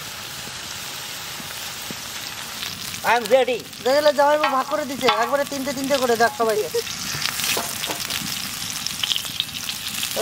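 Chicken tikka skewers sizzling in shallow sunflower oil on a flat griddle (tawa): a steady frying hiss with scattered crackles in the second half. A person's voice is heard briefly in the middle.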